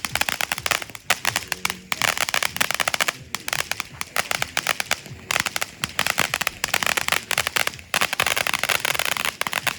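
Consumer fireworks crackling: long runs of very rapid sharp pops with a few short breaks, stopping near the end.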